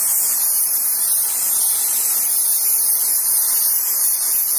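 Oxygen-butane brazing torch flame hissing steadily as it heats a copper pipe joint; the hiss is high and even throughout.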